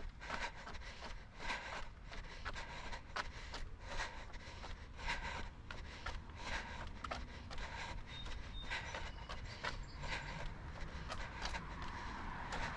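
A jogger's footfalls on a concrete sidewalk and hard breathing, in irregular strokes about once or twice a second over a low steady rumble. A car passes near the end.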